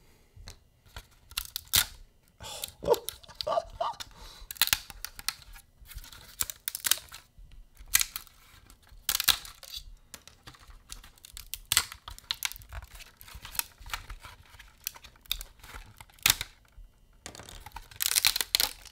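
Red PETG tree supports being snapped and pulled off a PLA 3D print by hand: an irregular run of sharp plastic cracks and snaps as the supports break away from the print.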